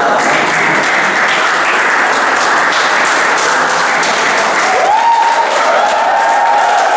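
A small crowd of spectators clapping steadily and loudly. About five seconds in, a voice rises into a long shouted cheer.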